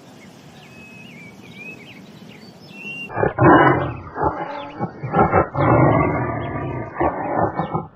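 Birds chirping quietly, then about three seconds in a sudden cut to a big cat's loud, rough growls and roars, repeated in a string of calls.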